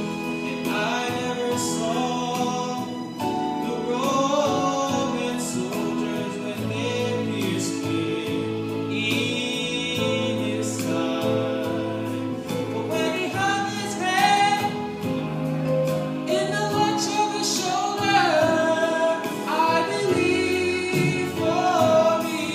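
Gospel song sung by a small family vocal group, father and sons, with long held notes and sliding runs between words.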